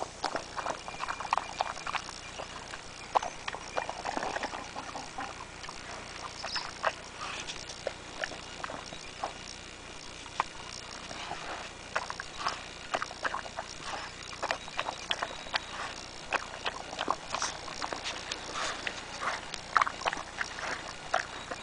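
Dog chewing and crunching watermelon: a steady, irregular run of short wet crunches and clicks.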